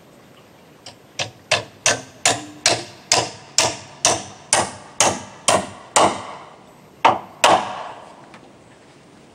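Hammer driving a nail into wood: a quick, even run of about a dozen ringing strikes, roughly two and a half a second, then two more strikes after a short pause.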